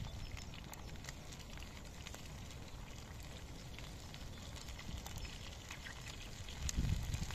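Wood fire crackling under a frying pan, with food frying in the pan and faint scattered clicks from the fire. A low rumble comes in near the end.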